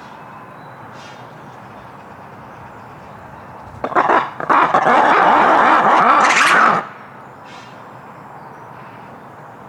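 Lemurs calling: a loud, harsh chorus that bursts out about four seconds in, lasts about three seconds and cuts off suddenly.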